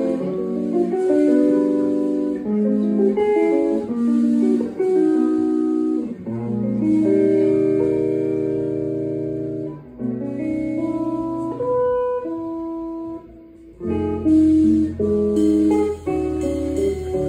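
Jazz trio of electric guitar, organ and drums playing: chords and melody notes, thinning to a few single high notes about two-thirds through, then a low bass line and cymbals come in near the end.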